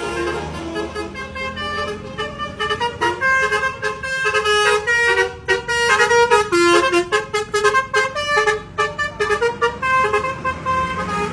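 Indonesian 'basuri' multi-tone bus horn playing a quick melody of short horn notes. A drum kit is played along with it from about three seconds in, with sharp drum and cymbal hits.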